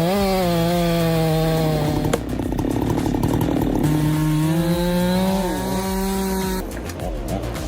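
Husqvarna 390 XP two-stroke chainsaw revving up and running at high speed. In the middle its steady note breaks up into a rougher, denser sound for about a second and a half, then it settles back to a steady high note.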